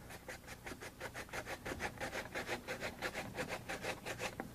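Zucchini pushed back and forth over a hand-held plastic mandoline's julienne blade, cutting thin strips: quiet, even rasping strokes, about five a second.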